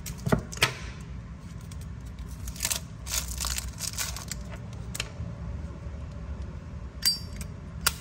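Scattered sharp metallic clicks and clinks from Zippo lighters being handled and set down, a cluster of them in the middle and a short ringing clink near the end.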